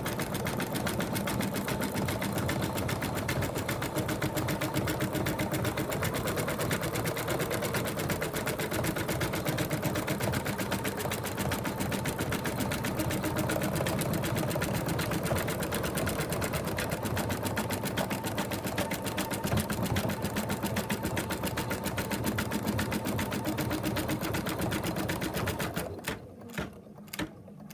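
Embroidery machine stitching at a rapid, even rate, sewing the outline that runs all the way around an in-the-hoop stuffed toy. It stops about two seconds before the end, followed by a few clicks.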